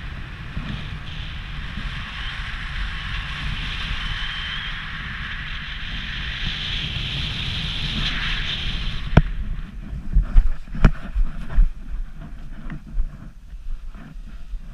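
Wind rushing over the microphone as a parachutist descends under canopy and swoops in to land, building until about nine seconds in. The rush then drops away, with a sharp knock at touchdown and a few irregular knocks and rustles as the landing is run out and the canopy comes down.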